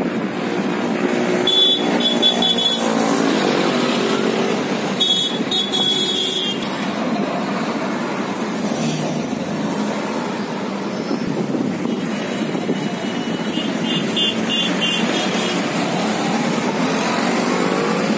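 Busy highway traffic: trucks, cars and motorcycles passing with a steady rush of engine and road noise. A few short high-pitched horn beeps sound about two and five seconds in, and a quick run of beeps follows later.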